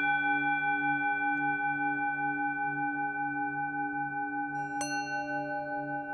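Singing bowl tuned to D, ringing on with a slow wavering pulse. It is struck again about five seconds in, bringing out brighter high overtones.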